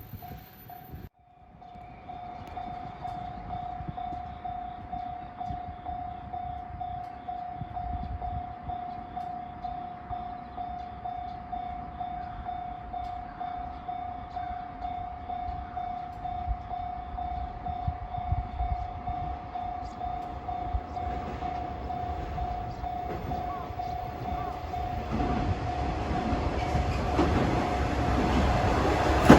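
Railway level-crossing warning bell ringing steadily from about a second in, as a JR KiHa 120 diesel railcar approaches, its rumble growing louder near the end.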